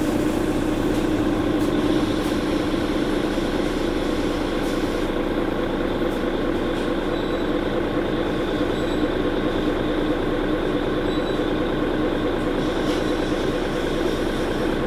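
Mercedes-Benz Citaro C2 G articulated bus with a ZF Ecolife automatic gearbox running, a steady drone with a strong low hum.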